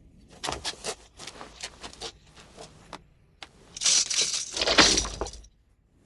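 Film sound effects: a run of sharp, separate crashing cracks, then from about three and a half seconds in a louder, denser shattering crash that cuts off suddenly.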